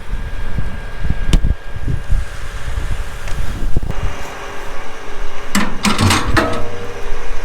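Farm vehicle running with repeated low thumps and knocks, a sharp knock about a second in and a short clattering rattle near the end.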